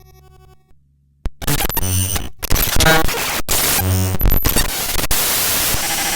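Electronic space-sound static: a faint low hum for about a second, then loud harsh noise with buzzy pulsing bands that settles into a steady hiss near the end.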